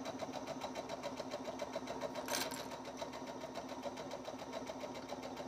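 Domestic sewing machine running at a steady pace, stitching a seam with a fast, even patter of stitches; a brief soft hiss about two seconds in.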